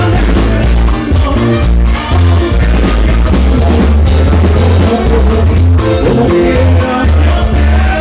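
Loud live band dance music with a steady beat and heavy bass.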